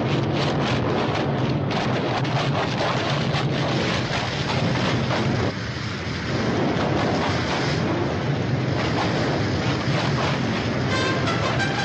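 Cartoon sound effect of a huge torrent of water rushing and crashing, a loud continuous noise that dips briefly about halfway through. Brass music comes in just before the end.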